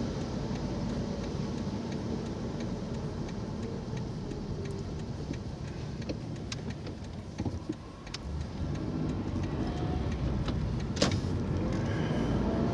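Car engine and tyre noise heard from inside the cabin while driving: a steady low rumble that eases off about eight seconds in, then builds again as the car picks up speed, with a few light clicks.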